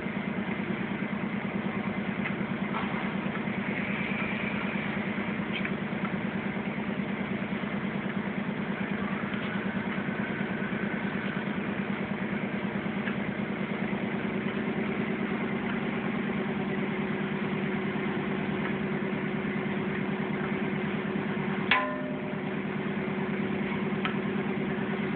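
A steady motor hum with a fine rapid pulse, and a single sharp knock about twenty-two seconds in.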